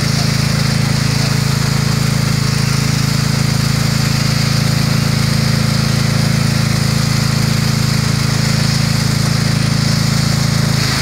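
Steady hum of an engine-driven water pump running at constant speed, feeding a fire hose, with the hiss of the water jet spraying onto the pavement.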